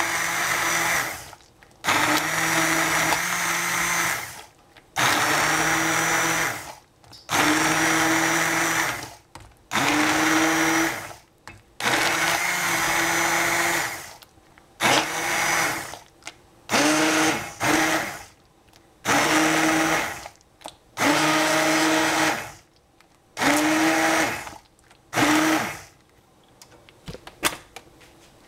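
Hand-held immersion blender puréeing cooked strawberries in a steel saucepan, switched on and off in about a dozen short runs of a second or two, the motor pitch rising as each run spins up.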